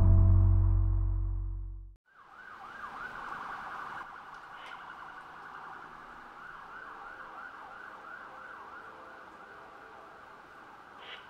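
The tail of intro music fades out, then about two seconds in a siren starts up, sweeping up and down in a fast warble about three times a second over a steady hiss.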